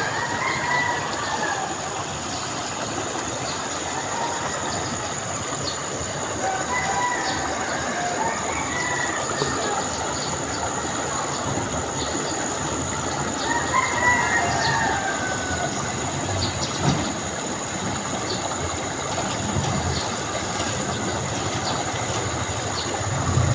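A rooster crowing three times, about once every six or seven seconds, over a steady background rush and a thin, constant high-pitched whine.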